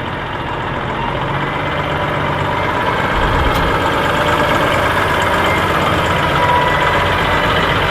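An engine running steadily, the continuous drone of an idling vehicle with no changes in speed.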